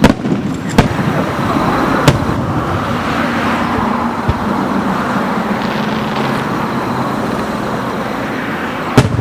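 Fireworks going off: sharp bangs at the start, about a second in, about two seconds in and again near the end, over a steady noisy background.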